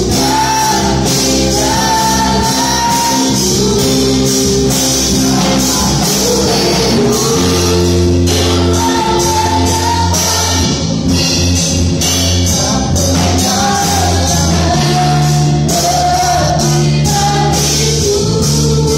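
Gospel worship song sung by a group of singers over amplified accompaniment, a sung melody carried over sustained bass notes and a steady beat, sounding through a hall's PA.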